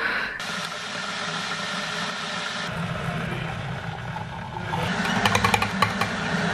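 Water poured from a jug into a glass, a steady splashing pour. From about five seconds in, ice cubes dropped into the glass clink against it.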